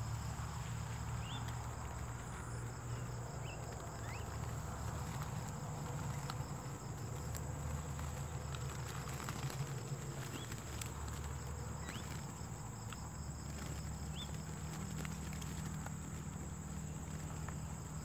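Faint field ambience of insects: a steady high-pitched trill that never stops, with a few short faint chirps and a low steady rumble underneath.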